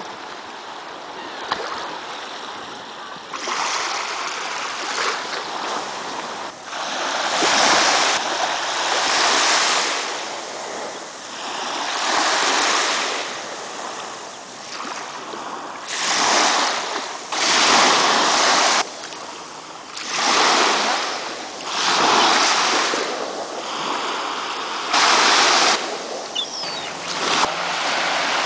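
Small sea waves breaking and washing at the water's edge, rising and falling in surges every couple of seconds.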